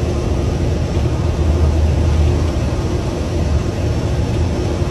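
Airliner engine noise: a steady low rumble with a faint steady hum above it.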